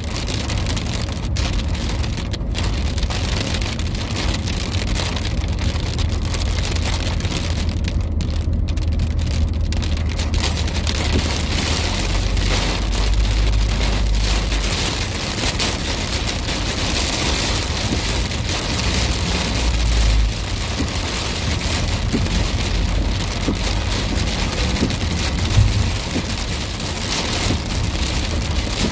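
Heavy rain falling on a car's windshield and roof, heard from inside the moving car. Beneath it runs a steady low rumble of the car on the road, which swells briefly a couple of times.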